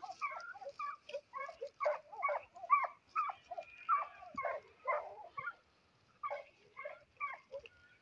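A pack of hunting hounds barking, many short barks overlapping one another, with a brief lull about six seconds in.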